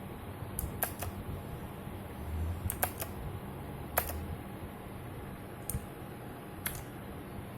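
Keys pressed one at a time on a Redragon Rahu K567 mechanical keyboard with Outemu Blue clicky, tactile switches: about eight separate sharp clicks spaced irregularly, sometimes in quick pairs, sometimes a second or more apart.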